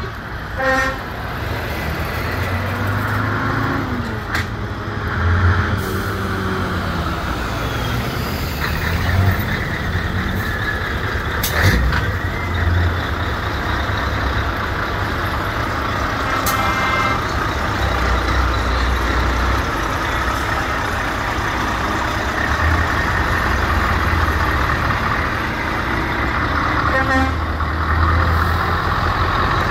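Heavy trucks driving past one after another in a convoy, their diesel engines running, the pitch falling as each one goes by.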